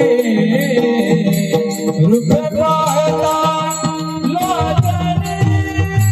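Marathi bhajan music: a gliding melodic line, likely the voice, over steady mridang drum strokes with a continuous rhythmic percussion accompaniment.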